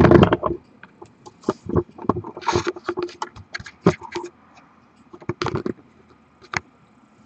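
Handling noise: a loud thump at the start, then scattered irregular clicks, taps and brief rustles as the handheld camera is moved and jacket fabric brushes against it.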